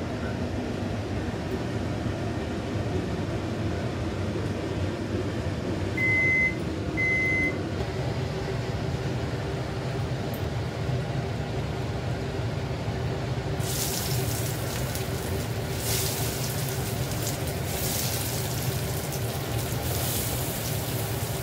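A steady low machine hum, with two short high electronic beeps about six seconds in, a second apart. About two-thirds of the way through, a hissing noise with uneven surges joins and keeps going.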